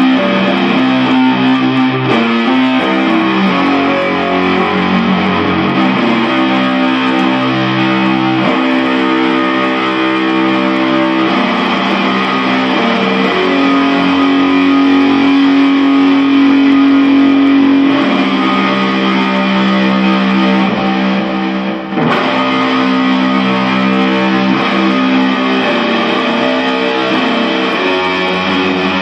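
Loud electric guitar music with distortion, chords held for a few seconds each before changing, with a brief drop in level about 22 seconds in.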